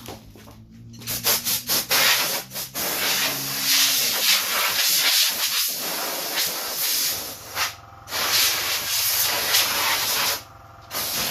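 Hand sanding or scrubbing on the freshly welded metal bracket, uneven rasping strokes that clean up the weld before painting. It starts about a second in, pauses briefly, and stops shortly before the end.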